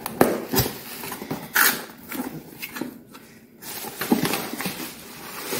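Cardboard box being opened by hand: flaps pulled open and the box handled, with irregular scraping and rustling and a few sharp clicks and knocks.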